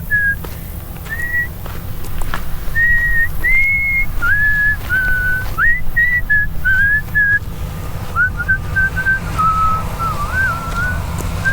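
A person whistling a tune, a string of short held notes with little slides between them, over the steady low rumble of a vehicle on the move.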